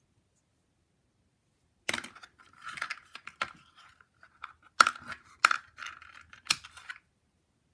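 Small jewelry pieces being handled and sorted on a table: rustling and light clinking, with about five sharp clicks. The sounds start about two seconds in and stop about two thirds of a second before the end.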